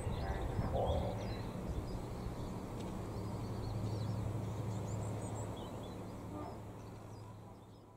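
Small birds chirping over a low, steady drone that fades out over the last couple of seconds.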